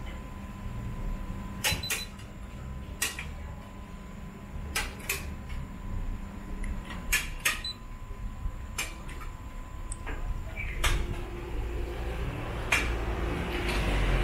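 Sharp clicks at irregular intervals as the RunCam 2 camera's buttons are pressed and the camera is handled on its mount, over a faint steady thin whine. A vehicle's low rumble and hiss rise over the last few seconds.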